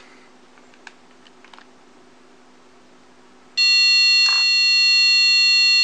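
A few faint clicks, then a loud, steady, high-pitched electronic beep tone lasting about three seconds that stops abruptly: the quadcopter's flight-controller buzzer giving its arming tone.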